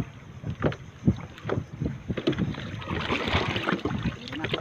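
Sea water sloshing and splashing around a person wading waist-deep, with a longer stretch of splashing about three seconds in as a wet fishing net is lifted out of the water.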